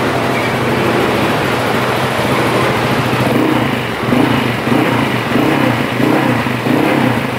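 Bored-up Honda ADV scooter's single-cylinder engine running on its first start after the rebuild, idling steadily through an aftermarket muffler, then revved in a run of quick throttle blips from about three and a half seconds in.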